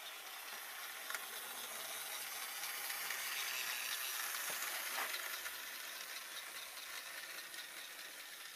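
Small battery-powered model train running on its track: a steady hissing whir from its little motor and wheels that swells as it passes close by, with a couple of light clicks.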